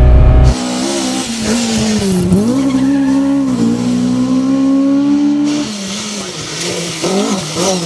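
Briefly, a steady engine drone heard from inside the Toyota AE86 Corolla's cabin; then, about half a second in, a Mk2 Ford Escort rally car's engine revving hard on a stage, its pitch climbing and dropping sharply with gear changes and lifts, around two, four and five and a half seconds in.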